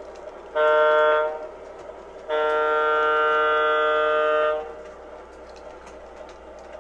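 MTH O scale model train's electronic sound-system horn blowing a chord: a short blast, then a long one of about two seconds, over the low running noise of the trains on the track.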